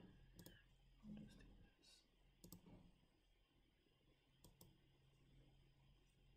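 A few faint computer mouse clicks, roughly two seconds apart, over near-silent room tone with a low steady hum.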